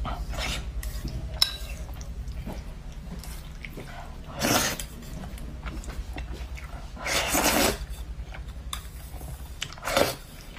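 Noodles slurped from chopsticks in three long slurps, about four and a half, seven and ten seconds in, with light chopstick and bowl clicks between them, over a low steady hum.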